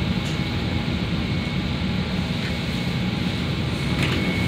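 Steady low rumble and hiss of a CTA 5000-series Bombardier rapid-transit railcar, heard from inside, as it rolls slowly along a station platform. A thin high steady tone comes in near the end.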